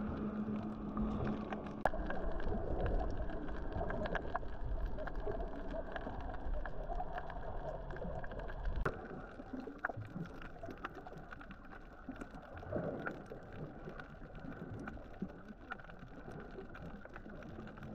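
Boat and water sounds: a low rumble with water noise that eases after about nine seconds, leaving quieter water sounds with scattered small clicks.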